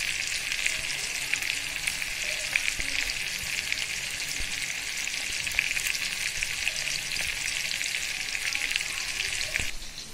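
Masala-coated fish pieces shallow-frying in hot oil in a pan: a steady sizzle full of small crackles and pops. It cuts off suddenly near the end.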